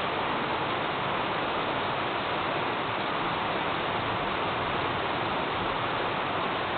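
Thunderstorm rain falling steadily as an even hiss, with no thunderclap.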